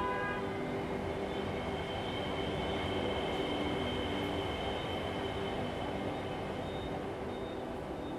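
Train rumbling past, a steady noise that swells slightly in the middle and eases off, under sustained droning tones.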